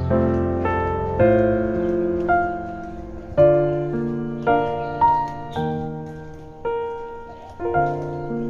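Background piano music: slow chords and single notes, each struck and left to fade.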